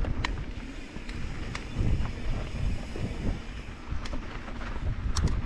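Mountain bike ride on a dirt trail: wind rumbling on the microphone over the tyres' rolling noise, with a few sharp clicks and rattles.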